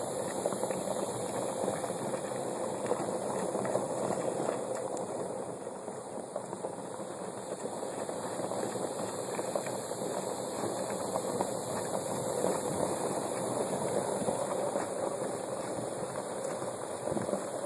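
Steady crunching of footsteps and a child's bicycle tyres rolling over a gravel driveway, a dense continuous crackle.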